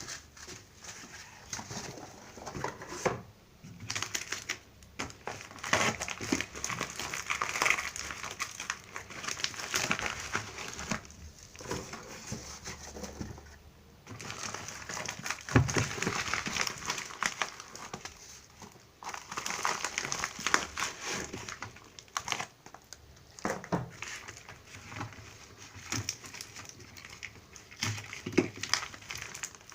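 Packaging crinkling and rustling in irregular bursts as a parcel is unwrapped by hand, with a few light knocks and one firmer thump about halfway through.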